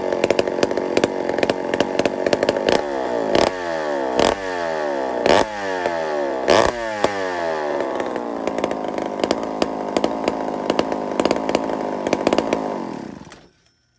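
McCulloch 797 two-stroke chainsaw running loud, with several sharp surges in the first half. It then runs evenly and is shut off about a second before the end.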